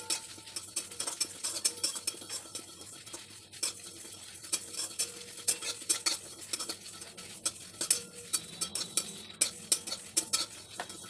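Metal spatula scraping and stirring whole spices (fenugreek, fennel, ajwain, cumin and mustard seeds with dried red chillies) around a dry metal kadai as they roast over a low gas flame. It makes a continuous run of irregular scrapes and clicks.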